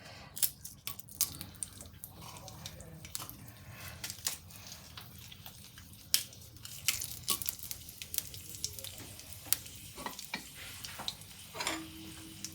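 Dried red chillies frying in hot sesame oil in a kadai: a low sizzle with scattered small crackles and pops.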